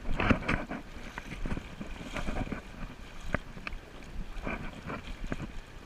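River water running and splashing around a person standing in it, with scattered short knocks and splashes.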